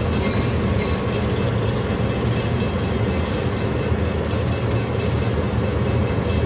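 Freight train of covered hopper cars rolling through a grade crossing: a steady low rumble, heard from inside a car's cabin.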